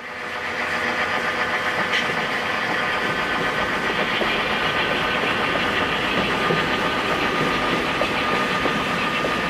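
Diesel locomotive engine running steadily as the model Canadian Pacific freight train passes. It fades in at the start and fades out at the end.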